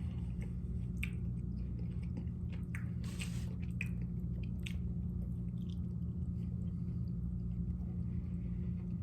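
A person chewing a mouthful of pasta with bacon, with wet mouth sounds and a few sharp clicks, over a steady low hum.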